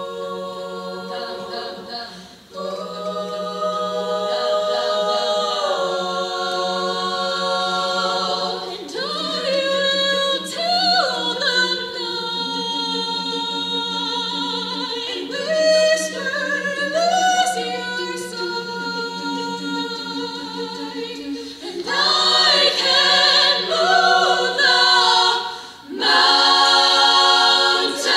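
Girls' a cappella choir singing in close harmony, several parts moving over a low held note. The singing dips briefly twice, at about two and a half seconds in and near the end.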